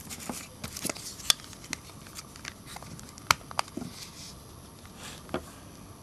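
Several sharp plastic clicks and handling noise as the battery pack is fitted onto the back of an LG B1300 mobile phone. The loudest click comes about three seconds in.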